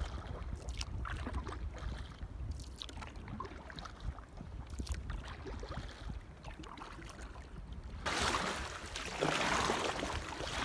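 Wind rumbling on the microphone over faint water lapping against a kayak hull. About eight seconds in, a louder rushing hiss of water sets in as the paddle strokes through the lake.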